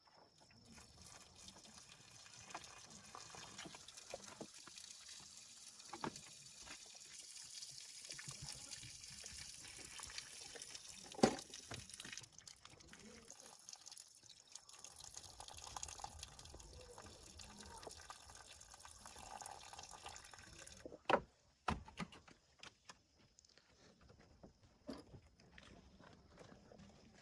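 Running water in a steady hiss that cuts off suddenly about three-quarters of the way through, with a few sharp knocks.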